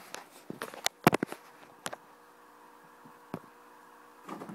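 A quick run of sharp clicks and light knocks from handling, loudest about a second in, one more click later and a soft rustle near the end, over a faint steady hum.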